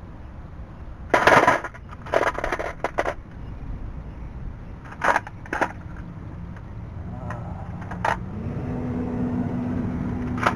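Scattered metallic clinks and scrapes of a socket and ratchet working on a bolt under a Jeep, the loudest clatter about a second in and a run of quick clicks soon after. In the last few seconds a steady vehicle engine hum builds underneath.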